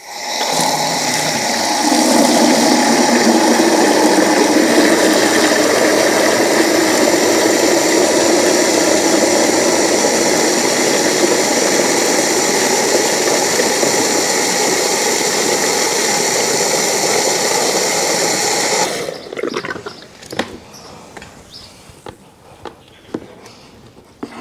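Garden hose running water into a plastic bucket chicken waterer: a steady, loud rush of filling water that cuts off suddenly after about nineteen seconds, followed by a few light knocks as the bucket is handled.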